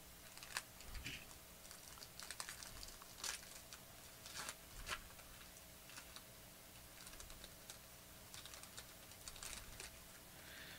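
Faint crinkling and small scattered clicks of a foil pack of Panini Clear Vision football cards being torn open and its cards slid out by hand.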